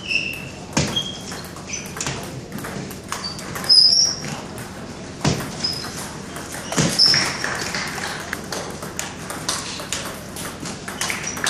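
Table tennis rally: the celluloid ball clicking off paddles and the table in quick succession, with a few heavier thumps among the clicks and short high squeaks of sneakers on the floor.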